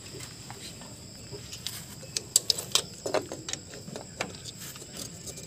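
Light clicks and taps of a brake shoe and return spring being handled and fitted on a drum-brake backing plate, with a cluster of sharper clicks a little past halfway.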